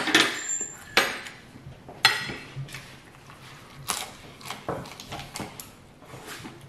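A metal fork clinking and scraping against a dinner plate while eating: three sharp clinks about a second apart, then softer taps.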